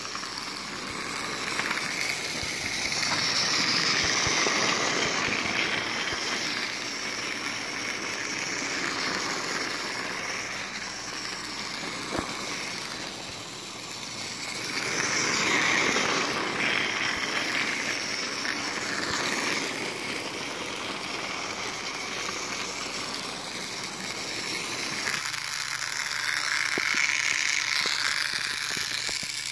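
Battery-powered TOMY Spencer toy engine running on plastic track, its small motor and gears whirring while the wheels, tender and truck rattle along the track. The sound swells and fades three times as the train comes close and moves away again.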